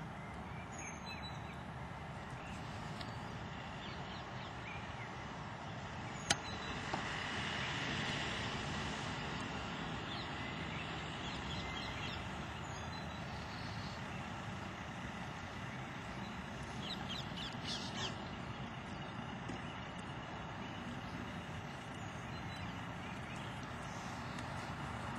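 Steady outdoor background rumble, with faint bird chirps now and then and one sharp click about six seconds in.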